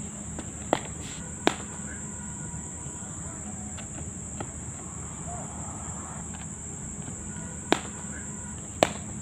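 Steady high-pitched insect buzz, with four sharp cracks of cricket bats striking balls: two in the first second and a half, two near the end.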